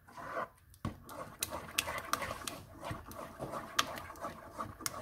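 Wooden spoon stirring a very thick plantain and oat porridge in a stainless steel pot: a rough, uneven scraping and slapping of the heavy porridge, with several sharp clicks of the spoon against the pot. The heavy, thick sound is the sign that the porridge has thickened.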